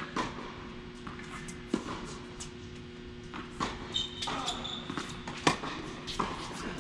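Tennis rally: a ball struck by racquets and bouncing on the court, sharp pops coming about every one and a half to two seconds, with shoe shuffles on the court between them.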